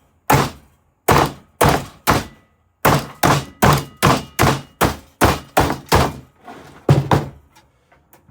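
A series of about fifteen sharp blows on the metal of a computer case, roughly two a second and quickening in the middle, then tailing off near the end: the bent case metal being hammered back into shape with a makeshift tool.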